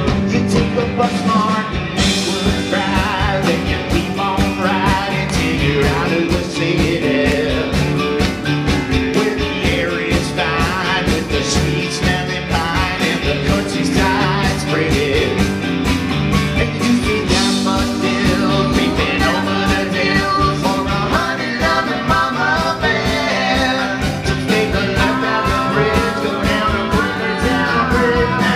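Live pop-rock band playing over a PA system: acoustic and electric guitars, bass and drums, with lead singing. The full band fills out about two seconds in.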